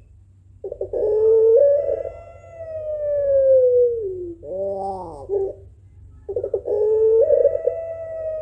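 Puter pelung (a Barbary dove bred for its long coo) cooing twice. Each call opens with a quick stuttering note and draws out into a long, slowly falling coo. The first call ends in a short arched note; the second is still going at the end.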